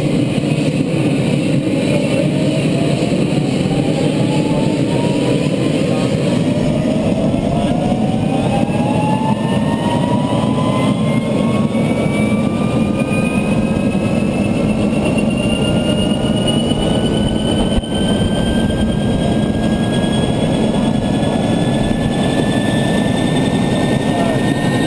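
Agusta helicopter's turbine engine spooling up after start: a loud, steady rush with several whines climbing slowly and smoothly in pitch as the engine and rotor gather speed.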